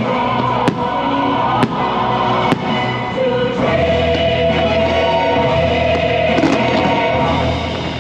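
Fireworks-show soundtrack music with voices singing, and three sharp firework bangs about a second apart in the first few seconds.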